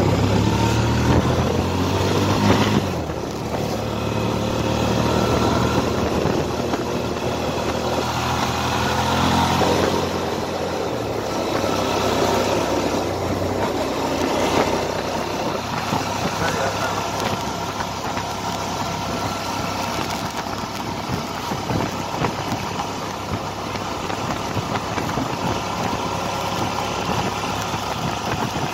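Suzuki V-Strom DL650's V-twin engine running under way, its pitch rising and falling with the throttle for about the first ten seconds. After that, a steady rush of wind over the bike mostly covers it.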